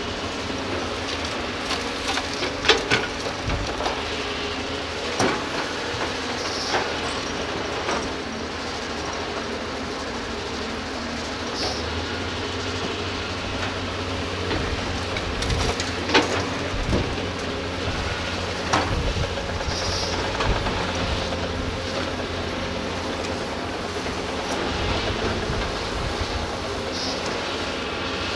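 Diesel engines of hydraulic crawler excavators, a Doosan among them, running steadily under load, with sharp metallic clanks and knocks from the buckets and from earth and rock dropping into dump truck beds; the loudest clanks come about 3 and 16 seconds in. A few short high squeaks are heard now and then.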